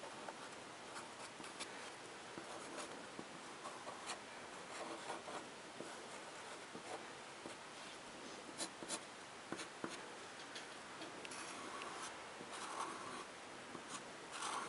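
A felt-tip pen scratching and rubbing on paper as lines are drawn, in short strokes with scattered light ticks; a few sharper ticks come a little past halfway, and longer scrubbing strokes near the end.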